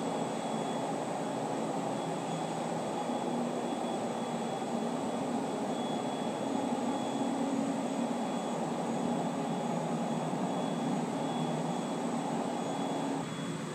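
A steady machine drone: a dense rumbling hiss with a faint high whine above it, easing off slightly about thirteen seconds in.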